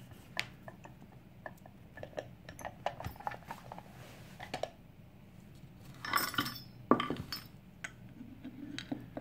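Small metal clicks and clinks from a picked dimple lock and lockpicking tools being handled, with a brief jingling cluster about six seconds in and a sharp click just before seven seconds.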